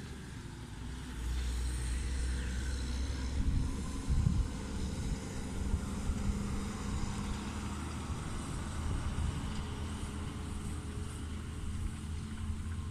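A car in motion, heard from inside: a steady low engine and road rumble with a faint hum, and a short knock about four seconds in.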